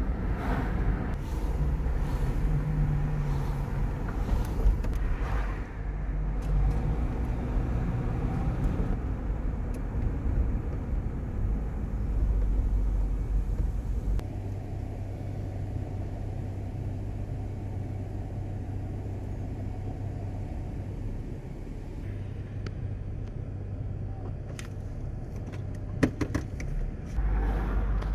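Engine and road rumble heard from inside a moving car, dropping to a quieter steady low hum about halfway through as the car slows in traffic, then swelling again near the end. A few sharp clicks sound shortly before the end.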